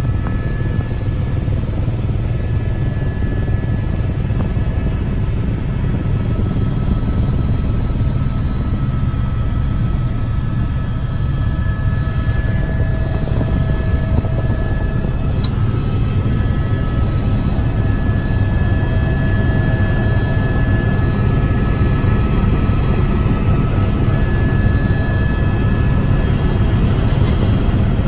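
Helicopter in flight heard from inside the cabin: a loud, steady low drone of rotor and engine, with faint steady higher tones that come and go.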